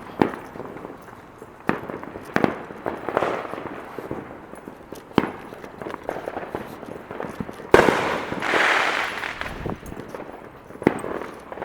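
Fireworks bursting overhead: about eight sharp bangs at irregular intervals. The loudest comes about eight seconds in and is followed by a couple of seconds of crackling hiss.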